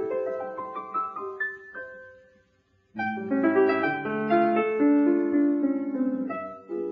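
Solo piano playing a medley of Broadway show tunes. A melodic phrase fades away about two seconds in, and after a brief pause fuller, louder chords start about three seconds in.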